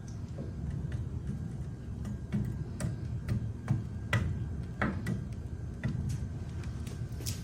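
Oak firewood burning, crackling with irregular sharp pops over a low steady rumble.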